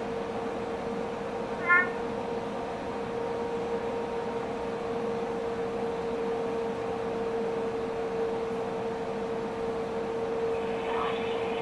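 A male peacock tree frog (Leptopelis vermiculatus) gives one short advertisement call, a quick rising note with several overtones, about two seconds in, over a steady background hum.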